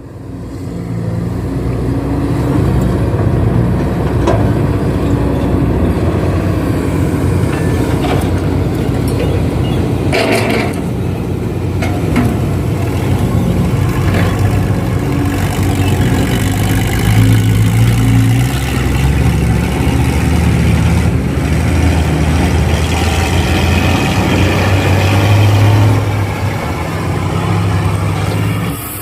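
Heavy equipment engines running steadily as an excavator loads soil into a dump truck, with a few sharp knocks scattered through.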